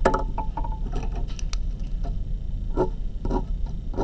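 Scattered light clicks and taps of a pen being handled on paper and desk as the writer switches pens, over a steady low hum.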